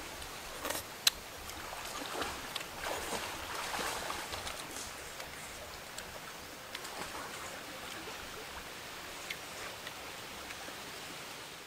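Steady rush of a running stream, with a few sharp clicks and ticks in the first seconds, the loudest about a second in.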